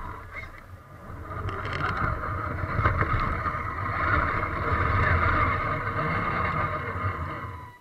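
Onboard sound of an RC crawler truck driving over dirt and gravel: its motor and gearbox whining steadily, with a low rumble and rattle from the chassis.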